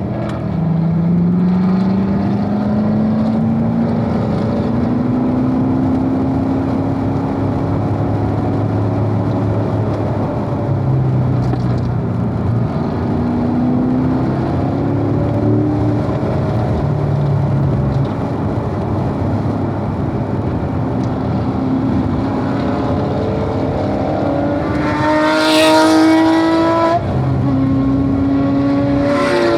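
Corvette V8 engine running hard on track, its pitch climbing under acceleration and dropping at gear changes and braking. A brief loud rush of noise comes near the end.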